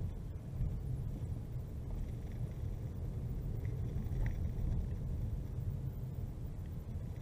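Steady low rumble of a car driving slowly, its engine and tyre noise heard from inside the cabin.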